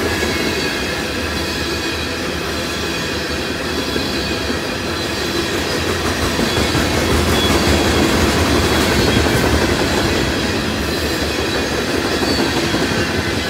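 Freight train's covered hopper cars rolling past: a steady rumble of steel wheels on rail, with faint high-pitched wheel squeal over it.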